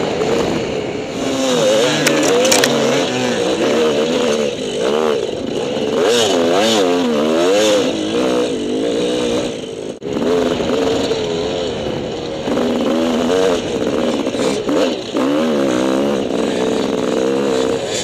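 Gas Gas EC250 two-stroke dirt bike engine under way on a dirt trail, its revs rising and falling constantly as the rider works the throttle.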